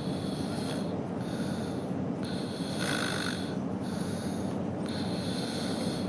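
A man snoring in his sleep, three long noisy snores about two and a half seconds apart with softer breaths between them, the loudest one near the middle. Under them runs a steady low rumble like a car cabin's road noise.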